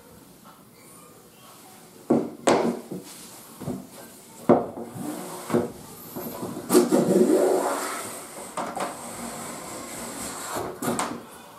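A Japanese wooden plane (kanna) pulled along a board, shaving the wood in a long rubbing stroke about two-thirds of the way in. Sharp wooden knocks come before and after it as the plane is handled on the board.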